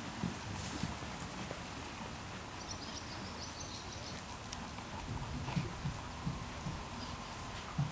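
Horse's hoofbeats on dirt arena footing: soft, dull thuds at an uneven rhythm, over a steady background hiss.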